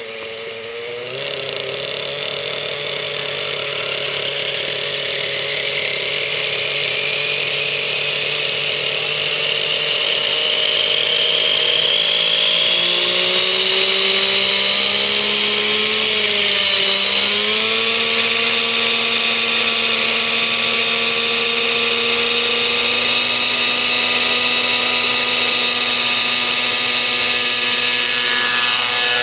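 Nitro glow engine (O.S. 55) of an Align Trex 600 radio-controlled helicopter running at high pitch with the rotor whirring, spooling up on the ground before take-off. The pitch rises steadily for about the first eighteen seconds, dips briefly, then holds steady at flying head speed.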